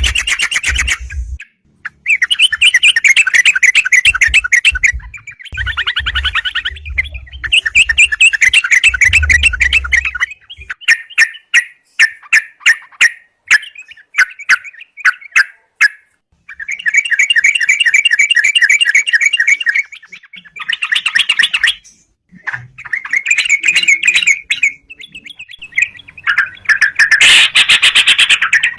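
Yellow-vented bulbul singing vigorously in its challenging, territorial mode: repeated loud bouts of rapid bubbling chatter, broken by short pauses and runs of quick separate notes.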